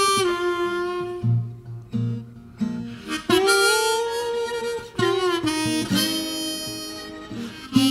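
Blues music: a harmonica plays long held notes with pitch bends over a plucked acoustic guitar.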